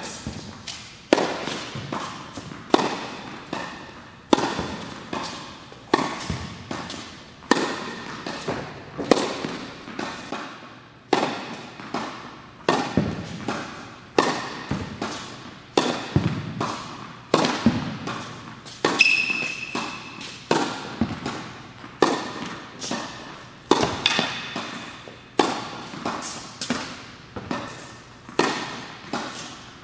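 Tennis rally: a ball struck by a racket about every one and a half seconds, with softer bounces between. Each hit echoes in a large indoor tennis hall.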